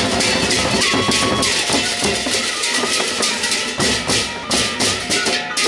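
Gendang beleq ensemble playing: large Sasak barrel drums and clashing cymbals in a fast, driving rhythm, with the strokes growing sparser near the end.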